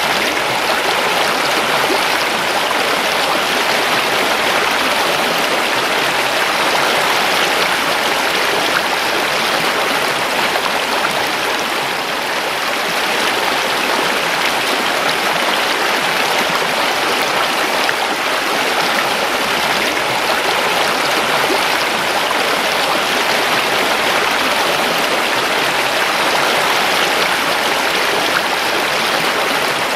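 River water rushing and babbling steadily over rocks, a continuous loud flow.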